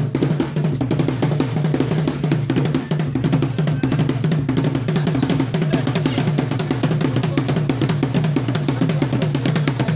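Ghanaian traditional drum ensemble playing a fast, steady, dense rhythm, with deep drum strokes and rapid sharper hits layered over one another.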